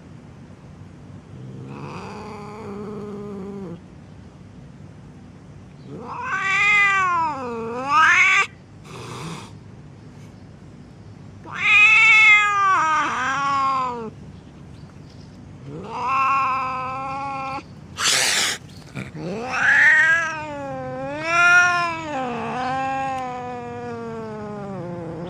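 Angry domestic cat yowling, a series of long, drawn-out wavering calls that rise and fall in pitch. Two short noisy bursts fall between the calls.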